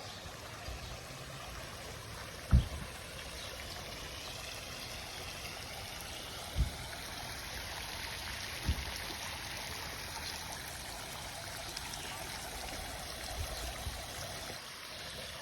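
Steady rush of flowing water, with three short dull thumps, the first the loudest.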